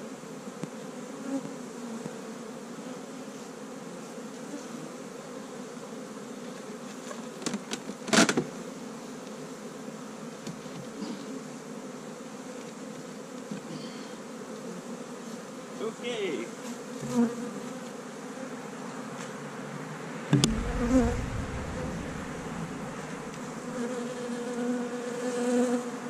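Honey bees buzzing in a steady hum around opened hives, defensive bees that have just been stinging the beekeeper. A sharp knock comes about eight seconds in and a low thump about twenty seconds in.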